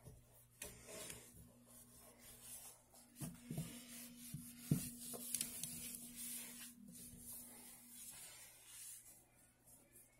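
Microfiber cloth rubbing over a stainless steel sink in soft, intermittent wiping strokes, with a couple of light knocks about three and a half and four and a half seconds in.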